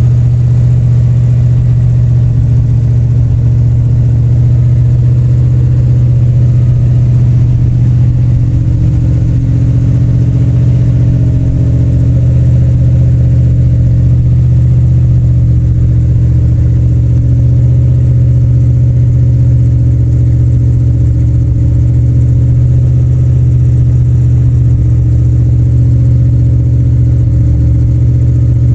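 1971 Plymouth 'Cuda's V8 idling steadily with a deep rumbling sound after a cold start, the car having sat for a week.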